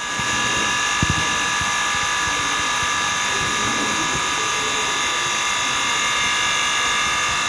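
Screen laminating machine's built-in pump running: a steady mechanical hum with several high whining tones, and a single knock about a second in.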